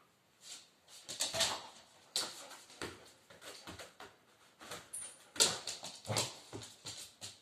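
A German shepherd and a Belgian malinois play-wrestling: an irregular run of sudden scuffles and paw steps on the floor, with short dog whines. The loudest scuffle comes about five seconds in.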